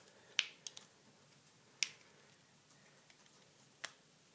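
Small screwdriver tips clicking against the metal shield and plastic release tabs of a Lexus OEM HID ballast socket as the tabs are pressed to free the shield: a handful of sharp, separate clicks spread over a few seconds.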